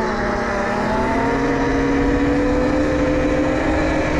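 A 72-volt electric pit bike's motor whining under throttle, rising a little in pitch during the first couple of seconds as the bike accelerates and then holding steady. A steady rush of wind and road noise runs underneath.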